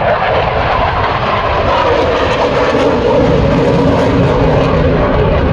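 Loud, steady jet roar from an F-22 Raptor's twin Pratt & Whitney F119 turbofans as it flies over. The strongest band of the roar sinks slowly in pitch.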